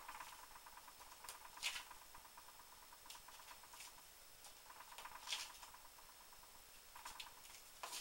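Faint rustling and light scraping of cardstock being handled and slid on a craft mat, with two brief scratchy swishes, about two and five seconds in.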